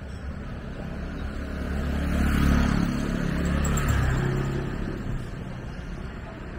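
A motor vehicle passing close by, its engine swelling to a peak in the middle and fading away, over steady street noise.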